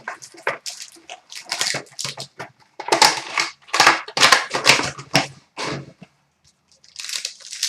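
Wrappers and packaging of hockey card packs being torn open and crinkled by hand: irregular rustling, crackling and ripping, pausing briefly about six seconds in before starting again.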